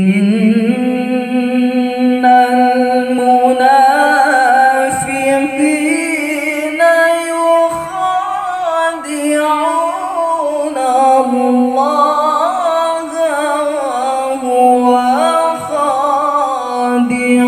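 A young male qori reciting the Quran in melodic tilawah style into a handheld microphone, in imitation of Pakistani haflah recitation. It opens on a long held note, then moves through long sustained notes with ornate winding runs.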